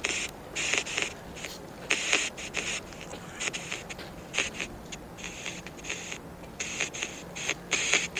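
Footsteps scraping on a dirt path as people walk, an irregular train of short scuffs about two a second.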